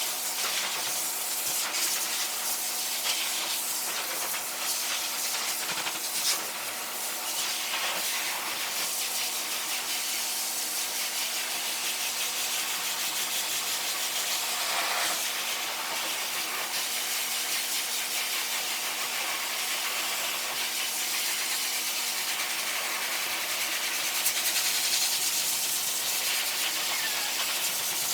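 Pet force dryer blowing a steady rush of air, with a low hum from its motor, drying a wet poodle puppy's coat.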